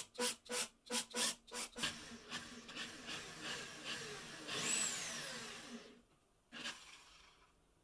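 Handheld power drill boring into plywood. It starts with a quick run of short trigger bursts, about four a second, then drills steadily with a twist bit, its motor whine falling as it slows and stops about six seconds in. A brief burst follows near the end.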